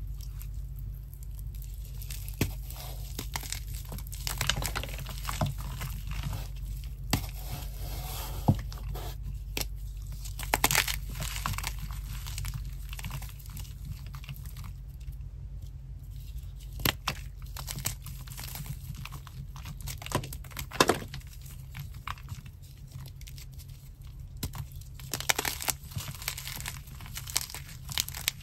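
Water-soaked chalk being crushed and squeezed by hand in a glass bowl: a continuous wet, gritty crunching and crumbling with many irregular sharp snaps as pieces and blocks break apart.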